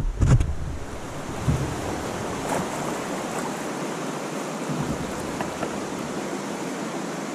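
Steady rush of a fast-flowing, shallow stream around a canoe being paddled through the current, with a couple of low thumps in the first half second.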